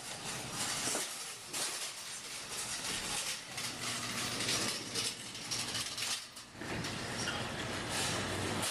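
Claw machine running as the claw is moved to rake at the prizes: a steady mechanical whirring and rattle, with a low hum from the motors joining about a third of the way in.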